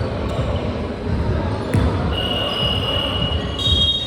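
Basketball play in a gym: a ball dribbling and players' footsteps thudding on the court. About halfway through, sneakers squeal on the floor with a thin high squeak that steps up in pitch near the end.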